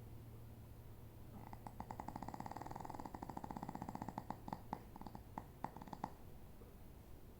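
A snore: a faint, rapid fluttering rattle that starts about a second and a half in, lasts about four and a half seconds, and breaks up into a few separate clicks before it stops.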